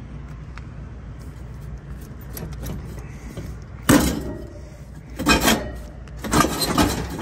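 Metal clanks and rattles as the blower motor and its mounting arms are handled inside the blower housing, during removal of a failed Trane X13 ECM blower motor. There is a low steady rumble, then a sharp knock about four seconds in and a run of clattering knocks near the end.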